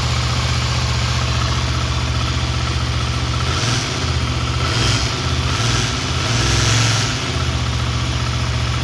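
Yamaha TDM 900's parallel-twin engine idling, with three short blips of the throttle in the second half; the owner reports an abnormal noise from it.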